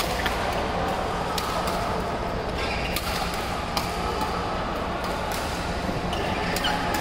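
Badminton rackets striking a shuttlecock: a series of sharp hits, about one a second, over the steady din of a busy hall.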